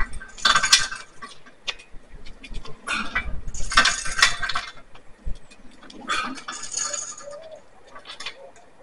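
Loaded ATX RS 500 prowler sled being worked: small metallic clinks and rattles of the steel sled and its plates, with three short hissing rushes about three seconds apart.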